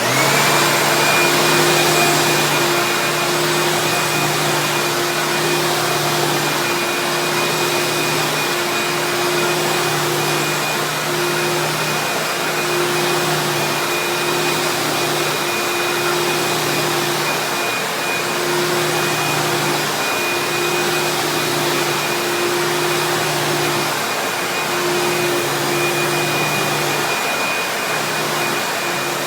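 1998 Eureka The Boss Plus upright vacuum cleaner switched on and running steadily: a loud, even rush of air with a thin high whine, over a low motor hum that wavers in and out.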